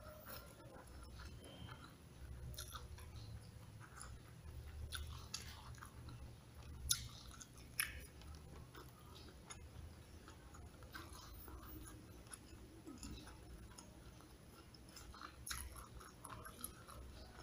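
Close-up chewing of crispy smashed fried chicken and rice eaten by hand, with wet mouth sounds and scattered sharp clicks and crunches, the two loudest about seven and eight seconds in.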